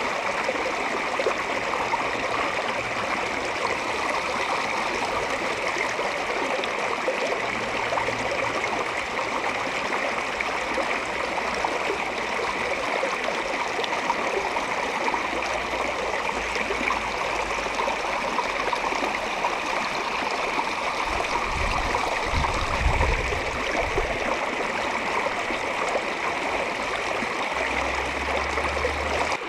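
Mountain trout stream rushing and splashing over rocks in riffles, a steady, full water noise. A brief low rumble comes about three quarters of the way through.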